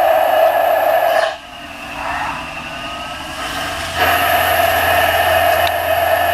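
Steady whir of a CNC lathe machining. It drops sharply to a quieter sound about a second in and comes back abruptly about four seconds in.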